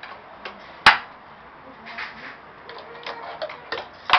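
Fingerboard clacking against the obstacles of a table-top fingerboard park: one sharp, loud clack about a second in, a few lighter taps, then another loud clack near the end.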